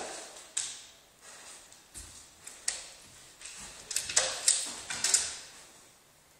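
A German Shepherd's claws clicking and scraping on a tiled windowsill as he climbs up and plants his front paws, a scatter of sharp taps with a quick cluster of them about four to five seconds in.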